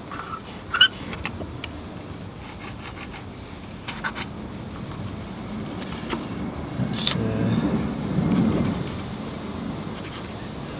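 Pencil scratching on a plywood board as the outline of a small rocker switch is traced, with a sharp click just under a second in and a few lighter knocks from the switch being handled. A low rumble in the background swells for about two seconds around seven seconds in.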